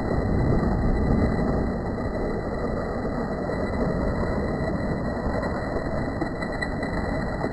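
Steady low rumble of a boat's motor mixed with churning sea water, dull and muffled with nothing in the upper range.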